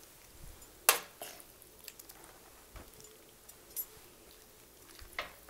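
Metal serving spoon and ladle clinking and scraping against a stainless steel pan and a plate as shrimp stir-fry is spooned out. There is one sharp clink about a second in, then a few fainter clicks.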